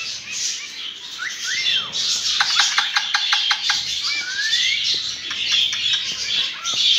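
Birds chirping and calling. There are rising and falling whistled notes about a second in and again past the middle, and a quick run of about eight sharp chips around two and a half seconds in, all over a steady high twittering.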